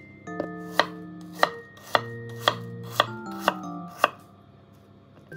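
Kitchen knife chopping an apple on a wooden cutting board: seven sharp knocks of the blade on the board, about two a second, stopping about four seconds in.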